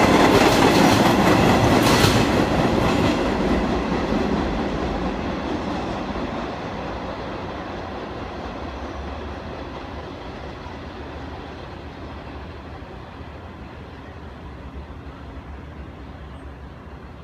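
Vintage New York City subway train passing at speed and rolling away, its wheels clacking over rail joints. The sound is loudest at first, with one sharp clack about two seconds in, then fades steadily as the train recedes.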